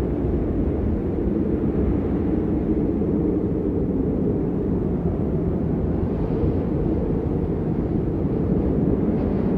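Steady low rumble of winter wind buffeting the microphone, with no separate events standing out.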